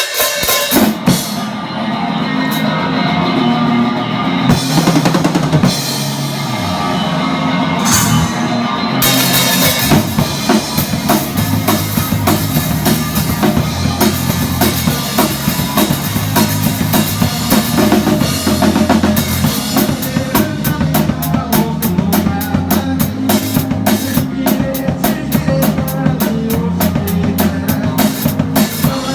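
A band playing a rock song live, heard from beside the drum kit, so the kick, snare and cymbals stand out over the bass and guitars. Quick, steady cymbal strokes come in about two-thirds of the way through.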